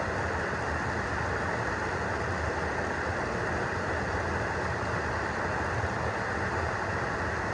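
Fast stream water pouring down a rock chute and churning into a pool: a steady, even rush with no breaks.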